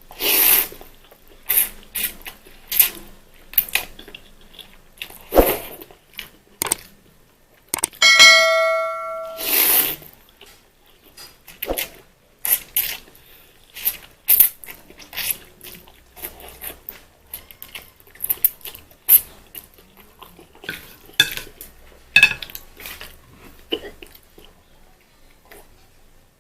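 Close-up eating sounds of instant fried noodles: repeated short slurps and chews. About eight seconds in, a metal utensil strikes the dish once with a clear ringing clink that hangs for about a second.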